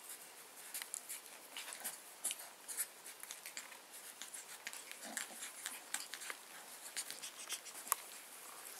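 Bearded Collie puppies scuffling and play-fighting on a blanket: rapid, irregular clicks and taps of paws and claws, with a brief small puppy grunt or growl about five seconds in.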